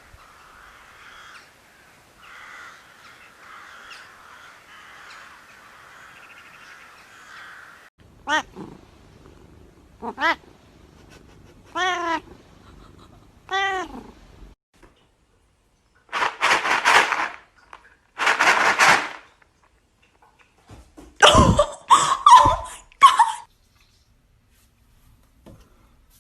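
Cat meowing four times, about two seconds apart, followed by two long hissing bursts and then a quick cluster of short, sharp cries.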